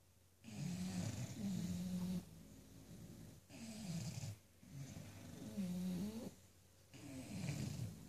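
Sleeping English bulldogs snoring: a rough, low, pitched snore on the breaths, coming in about four rounds a couple of seconds apart, with short quiet pauses between them.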